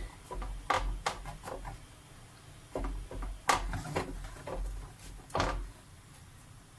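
A hand pressing and patting shredded kunafa pastry into a greased aluminium baking tray: short knocks and rustles of the dough and the thin metal tray. They come in two spells, with a pause about two seconds in.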